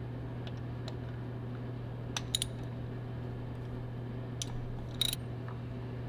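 A ratchet and 14 mm deep socket clicking and clinking as a spark plug is loosened: a handful of short, sharp metallic clicks, a small cluster a little after two seconds and another around five seconds in, over a steady low hum.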